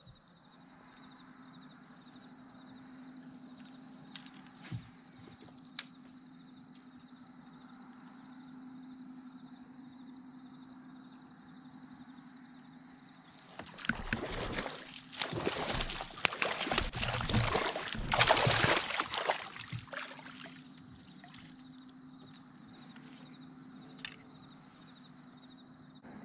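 Water splashing and sloshing at the side of a fishing kayak for about six seconds around the middle, loud and irregular. Under it, a steady high insect drone and a low hum.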